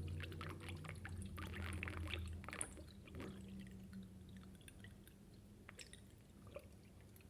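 Theo Klein toy Miele washing machine running with water: its small motor hums steadily while water sloshes and splashes in the drum. The hum weakens about two and a half seconds in, leaving fainter sloshing and drips.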